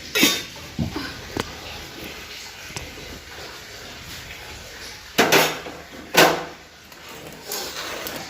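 Household clatter: a few sharp knocks in the first second and a half, then two louder clattering knocks about five and six seconds in, like kitchen things being handled and a drawer or cupboard shut.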